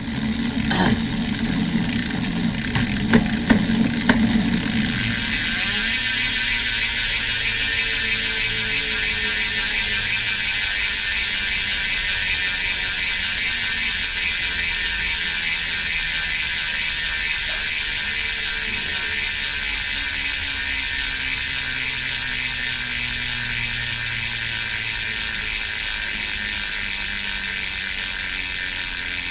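Koozer XM490 rear hub's ratchet pawls ticking in a fast, even buzz as the freely spinning rear wheel coasts, slowing only slightly. A few knocks and a low hum in the first few seconds as the wheel is set going.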